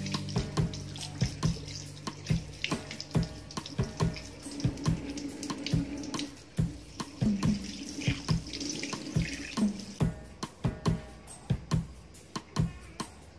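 Water running from a kitchen tap and splashing over raw chicken pieces being rinsed by hand in a metal colander in the sink, with many short, irregular splashes and knocks.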